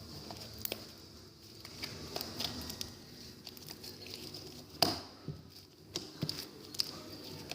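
Slime being squished and pulled by hand, with scattered small sticky clicks and pops; one sharper pop about five seconds in.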